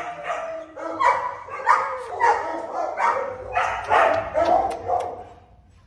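Puppy barking repeatedly, about two barks a second, the barks dying away near the end.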